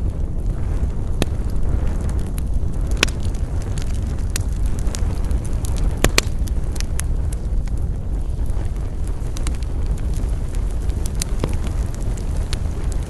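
Wood campfire crackling, with irregular sharp pops throughout, the loudest about three and six seconds in, over a steady low rumble.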